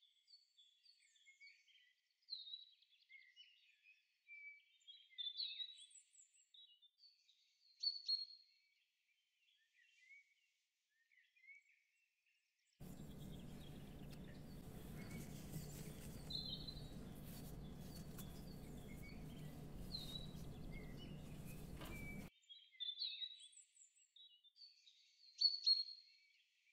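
Wild songbirds chirping and twittering in short, quick phrases throughout. About halfway through, a steady low hum with hiss comes in under the birds and cuts off abruptly some nine seconds later.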